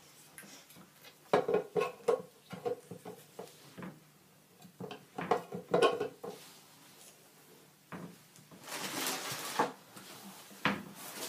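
Irregular knocks, clicks and rattles of a TV stand bar being handled and fitted to the TV, with a burst of rustling about nine seconds in.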